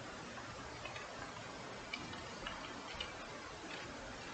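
Faint computer keyboard keystrokes: a handful of light, irregularly spaced clicks over a low steady background hiss.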